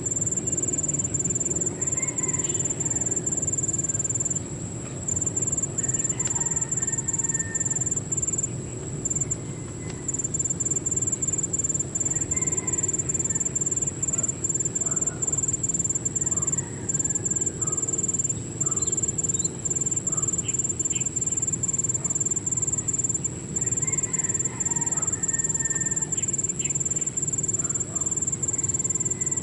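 Steady, high-pitched trilling of an insect chorus, crickets or similar, running without a break over a low steady rumble, with a few faint short chirps now and then.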